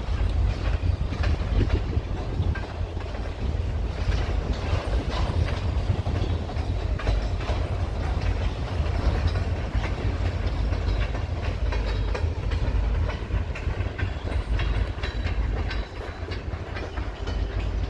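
Norfolk Southern freight train of covered hopper cars rolling past, its wheels clicking over the rails above a steady low rumble.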